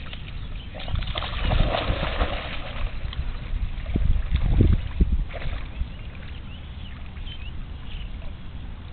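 A pitbull/bulldog mix splashing into a pond and paddling out, with a burst of splashing water about a second in and softer sloshing as it swims. Low rumbling bursts, loudest about four to five seconds in.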